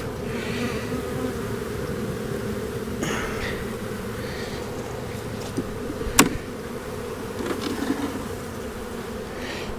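Honeybees buzzing in a steady drone around an opened hive, with a single sharp click about six seconds in.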